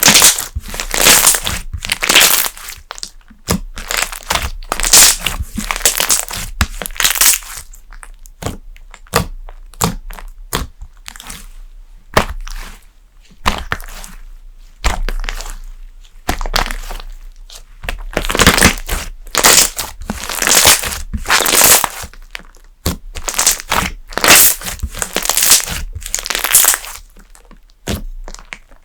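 Thick slime being worked, crackling and popping in repeated bursts, roughly one every second or two.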